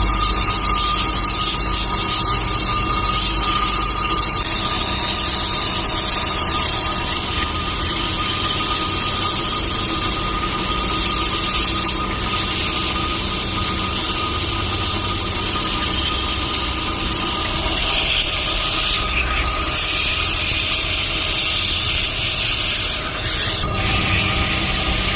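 Car brake disc being rubbed clean with an abrasive, a continuous rasping scrape, to cure a noise when braking.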